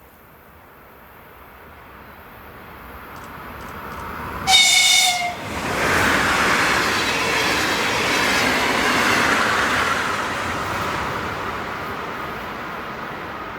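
An electric train approaching and sounding one short horn blast about four and a half seconds in, then passing close by with loud wheel and rail noise that fades toward the end.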